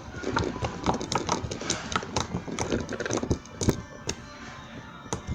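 Homemade slime being squeezed and kneaded by hand, giving a rapid run of irregular clicks and small wet pops that thin out after about three and a half seconds.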